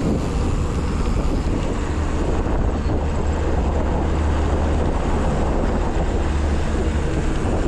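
Steady rush of wind buffeting a moving camera's microphone over the rumble of mountain bike tyres rolling down a dirt trail.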